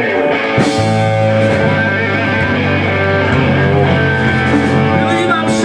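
Live rock band playing: electric guitar and bass guitar over drums, with held notes over a steady bass line and cymbal crashes about half a second in and near the end.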